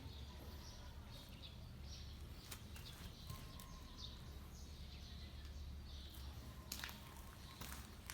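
Faint outdoor background: a steady low rumble with scattered short high chirps, like small birds, and a few light clicks.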